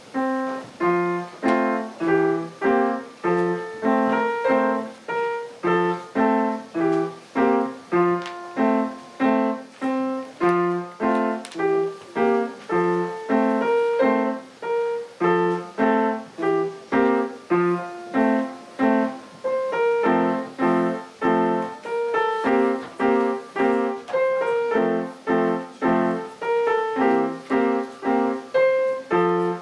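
Piano playing a simple tune with a steady beat of about two notes a second, a bass note under each beat of the melody.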